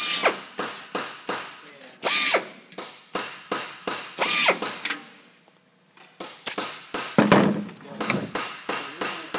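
Pneumatic rivet gun firing short bursts against a bucking bar, about two a second, driving aluminium rivets into a rib of a B-17 horizontal stabilizer. There is a pause of about a second midway.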